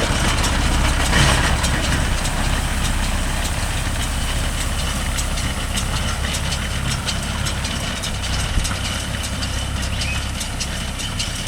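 Mahindra Yuvo Tech Plus 585 tractor engine running steadily at a constant speed, with scattered light clicks over it.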